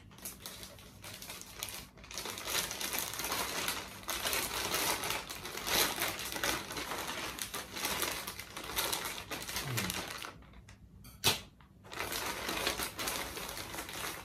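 A plastic courier mailer bag rustling and crinkling as it is cut open with scissors and handled, with many small snips and crackles. A short lull a little after ten seconds in is broken by a single sharp click, the loudest sound.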